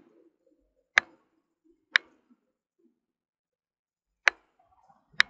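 Four separate, sharp computer mouse clicks: two a second apart, then a pause, then two more near the end.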